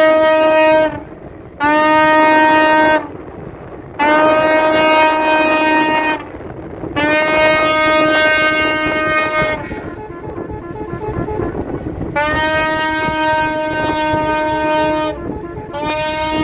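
Ship's horn sounding about six long blasts, each one to three seconds at one steady pitch, with short gaps and a longer pause about halfway through; a steady noise carries on underneath.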